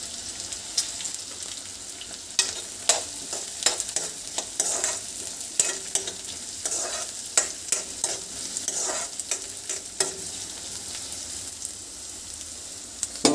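Chopped onions sizzling in hot oil in a metal kadai. From about two seconds in until about ten seconds, a spatula clacks and scrapes against the pan as the onions are stirred.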